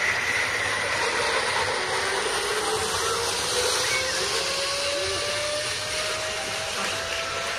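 Zipline trolley running along the steel cable, a faint whine that climbs slowly in pitch as the rider picks up speed, over a steady hiss.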